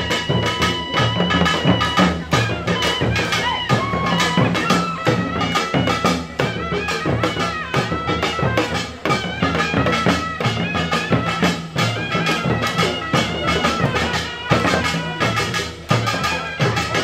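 Korean samulnori drumming, with janggu hourglass drums and buk barrel drums beaten in a fast, steady rhythm. Over it plays a reedy wind melody from a taepyeongso (Korean shawm).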